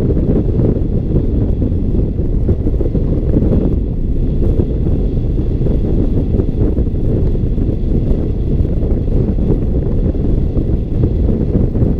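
Airflow buffeting the microphone of a wing-mounted camera on a hang glider in flight: a loud, steady low rumble of wind noise.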